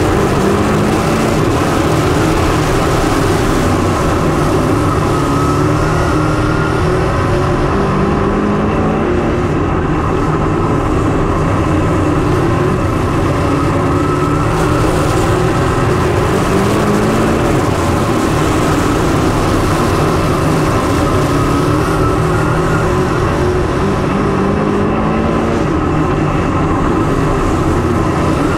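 Dirt late model race car engines running hard, loud and continuous, the pitch climbing and dropping back every few seconds.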